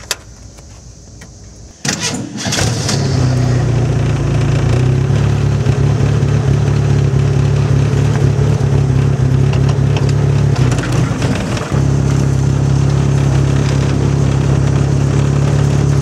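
A car engine starts about two seconds in and then runs steadily, with a brief break about twelve seconds in.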